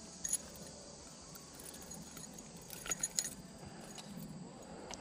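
Faint metallic jingling and clinking of a spinnerbait's blades and wire as a smallmouth bass is unhooked from it and held up: a few short clicks about a third of a second in and twice around three seconds in.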